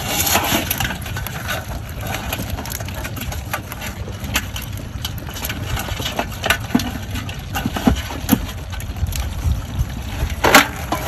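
Irregular clicks and rattles from a wire-mesh crab trap and live crabs knocking against a metal basin as the crabs are worked loose from the mesh by hand, over a steady low rumble.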